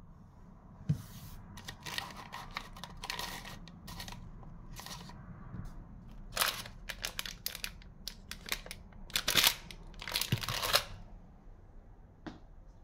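Paper tea and sugar sachets rustling and crinkling as a hand picks through them, in irregular clusters of crackles that start about a second in and stop shortly before the end, with a sharp click near the start.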